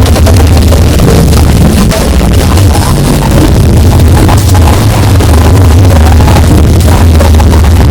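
Very loud, distorted music blasted through a giant 'sound horeg' sound-system rig, dominated by a heavy, unbroken bass.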